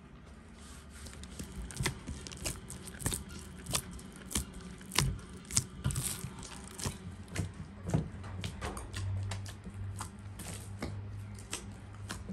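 Soft bread dough being kneaded by hand in a large enamel bowl: irregular wet slaps, squelches and pats, about one and a half a second.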